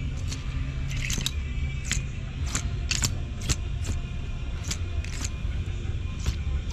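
Clothes hangers clicking and scraping along a metal clothing rack as shirts are pushed aside one after another, about two clicks a second at an uneven pace, over a steady low hum.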